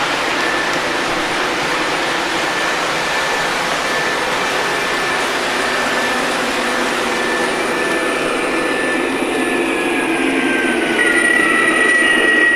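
MTH Premier O-gauge model freight train running on the track: a steady rolling rumble of wheels and motors with a thin whine above it.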